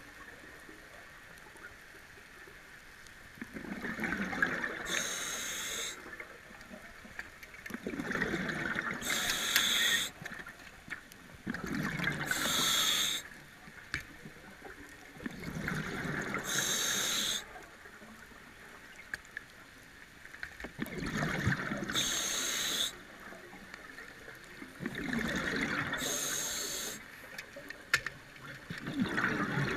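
A diver breathing through a scuba regulator, about every four to five seconds: a burst of bubbling exhaust bubbles, then a short hiss.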